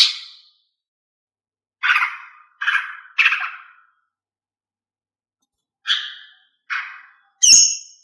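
Female greater green leafbird (cucak ijo) giving short, harsh call notes, about seven in all. There is one at the start, a quick run of three about two seconds in, then three more near the end, the last with a clearer whistled tone.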